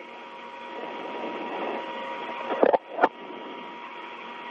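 Static hiss of an open space-to-ground radio channel with a faint steady tone running through it, broken twice by sharp clicks in quick succession a little past halfway.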